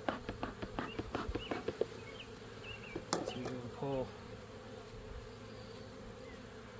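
Honey bees buzzing around an opened hive, with one bee flying close past the microphone just before the four-second mark. Over the first two seconds, quick regular puffs of the bee smoker's bellows, about three or four a second, and a single sharp knock about three seconds in.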